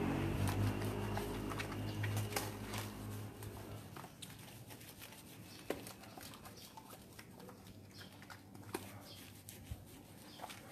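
A passing motor vehicle's engine hum fades away over the first few seconds. After that come scattered small splats and clicks of soapy water dripping onto wet concrete as hands work lather through a wet dog's coat.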